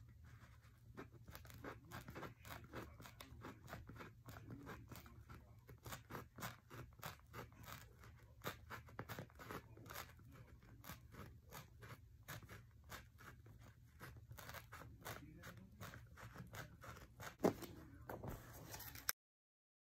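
A craft knife scraping and crunching through foam paper, together with clear packing tape being pulled and peeled off its roll, in short irregular strokes several a second, with one sharper click near the end.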